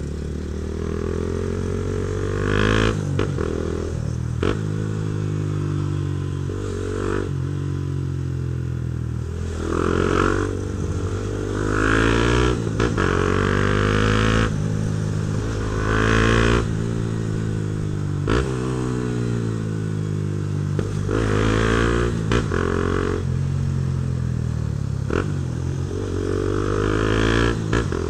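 Honda CB Twister's single-cylinder engine through a Protork aftermarket sport exhaust, running under way: it revs up and eases off again and again, its pitch climbing and dropping, with short sharp cracks now and then between the pulls.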